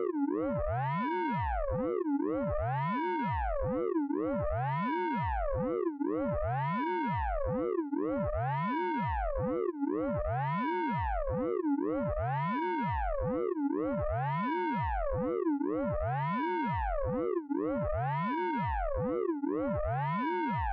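Synthesized 'radar pulse train' sound effect from the Orange Vocoder VST plugin: a buzzy tone with many overtones that sweeps up and back down in pitch, repeating the same cycle about every two seconds at a steady level.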